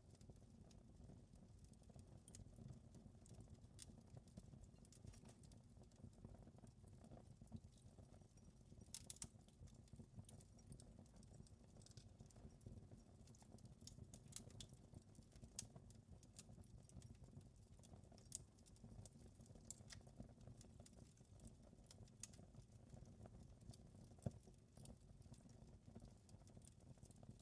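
Wood fire crackling faintly, with a steady low rumble under many small irregular crackles and a few sharper pops, one of the loudest a little before the end.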